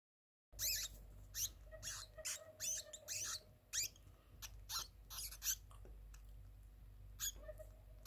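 Small caged pet rodent squeaking: a rapid string of short, high-pitched squeaks, about two a second, starting half a second in and pausing for about a second near the end. The owner puts the constant squeaking down to hormones.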